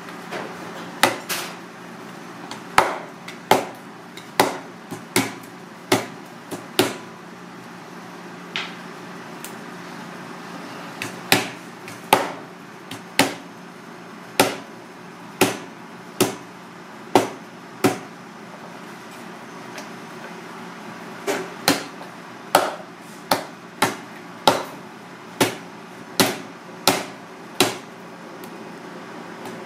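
Kitchen knife chopping through a red sea bream's bony frame onto a plastic cutting board: sharp knocks, about one a second, in runs with short pauses, coming quicker, about two a second, near the end.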